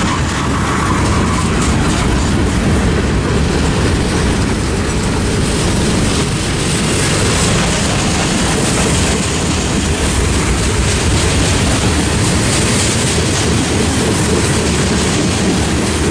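Freight train's boxcars rolling past: a steady rumble of steel wheels on rail.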